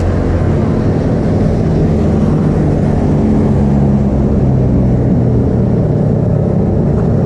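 Kawasaki ZX-25R's 250 cc inline-four idling steadily through a DX Generation Pro Race aftermarket exhaust with the dB killer removed.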